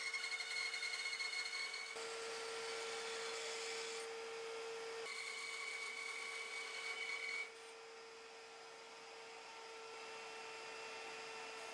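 Bandsaw running and ripping a wood blank into a strip about 15 mm thick: a steady hum with the hiss of the blade in the wood. It gets quieter about seven and a half seconds in, and the blade keeps running.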